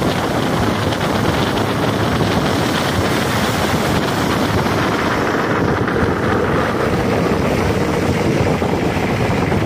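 Wind rushing over the microphone of a phone held at the window of a moving car, with the car's road noise under it: a loud, steady rush.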